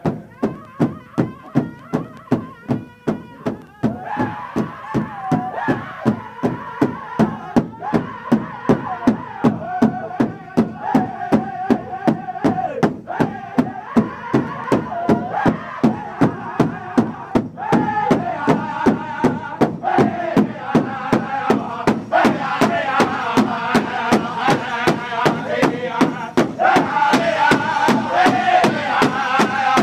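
Powwow drum group singing in unison over a large rawhide-headed drum struck together at a steady beat of about three strokes a second. A lone lead voice opens over the drum, and the full group of singers joins about four seconds in, growing louder and higher toward the end.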